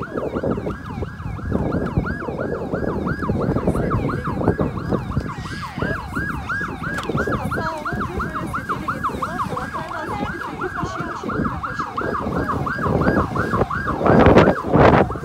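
An electronic siren in a fast yelp, its pitch sweeping up and down about three times a second without pause, over busy background noise. A loud burst of noise near the end.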